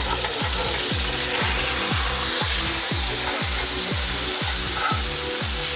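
Background music with a steady beat, about two beats a second, over the sizzle of a whole chicken frying in a hot cast-iron skillet as it is flipped with tongs. The sizzle gets louder about two seconds in.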